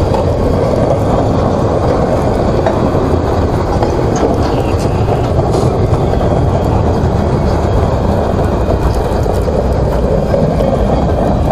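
Freight train cars (tank cars, boxcars and covered hoppers) rolling past close by: a loud, steady rumble of steel wheels on the rails, with a few faint clicks.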